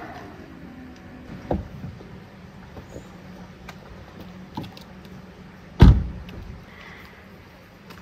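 Car door slammed shut: one heavy thud just before six seconds in, after a few lighter knocks and clicks as the door is opened and handled.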